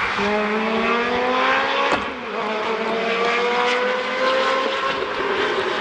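Race car engine accelerating, its pitch climbing steadily, dropping briefly about two seconds in as it shifts up, then climbing again.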